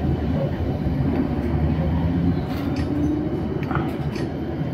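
Steady low rumble of a moving vehicle heard from inside its cabin while it drives along a city street, with a few faint clicks and rattles.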